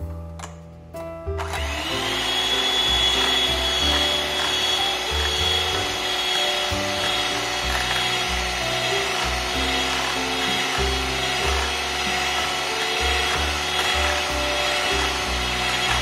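Electric hand mixer switched on about a second and a half in, its motor whining up to speed and then running steadily as the twin beaters whip whipping-cream powder in a glass bowl. Piano music plays underneath.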